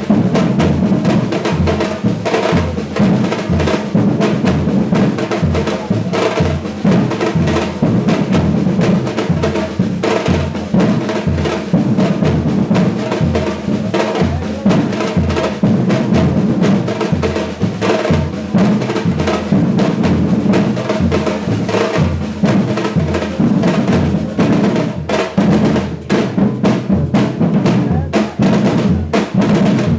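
Brazilian batucada percussion ensemble playing a dense, steady samba rhythm, with deep bass drums pulsing evenly under snare drums and other hand percussion.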